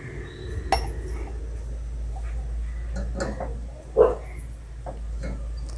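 A few short high-pitched animal cries, the loudest about four seconds in, over a steady low hum.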